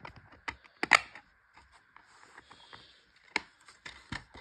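Plastic DVD case being handled and snapped shut: scattered sharp clicks and taps, the loudest about a second in and another sharp one past the three-second mark.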